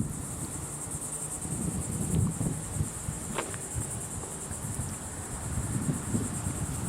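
Insects trilling in a steady, high-pitched drone, with wind rumbling on the microphone in gusts.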